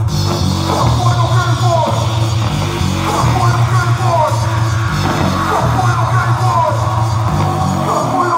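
Loud live electronic music played from a laptop and controller: a heavy, repeating bass line with short falling notes over it.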